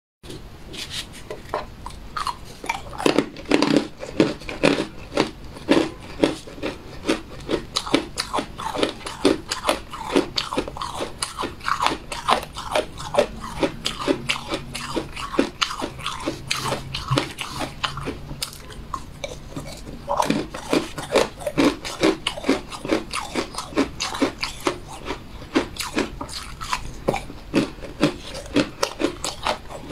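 Cookies being bitten and chewed close to the microphone: a dense run of sharp crunches, several a second, with a short lull about two-thirds of the way through.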